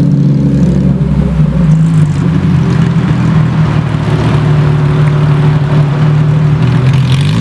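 Porsche 911 GT3's flat-six engine running at low revs as the car pulls slowly away, a steady note with small rises and dips in pitch.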